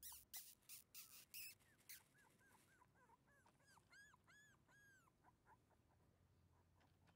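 Shiba Inu puppy whimpering: a quick run of about ten short, high squeaks, each rising and falling in pitch, over about three seconds. A few brief rustling scuffs come just before it, and faint short squeaks follow.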